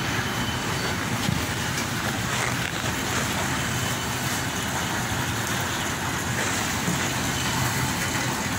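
Steady background noise of a supermarket: an even rushing hum that holds without change and carries no speech.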